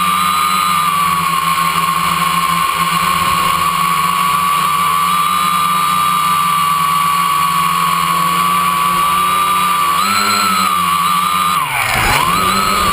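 Quadcopter's electric motors and propellers heard from a camera on the frame: a loud, steady whine over a lower buzz. About ten seconds in the pitch wavers, and near the end it dips sharply and climbs back as the motor speed changes.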